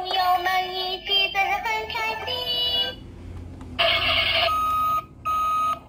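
Plastic Tayo the Little Bus toy playing an electronic song with synthetic singing through its small speaker; the song stops about three seconds in. After a short lull, a button press sets off a loud noisy sound effect followed by two long steady beeps.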